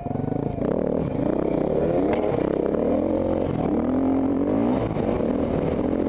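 Dirt bike engine revving hard under load, its pitch climbing and falling several times as the bike accelerates along the track.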